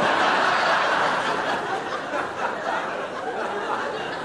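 Studio audience laughing, starting loud and slowly dying away.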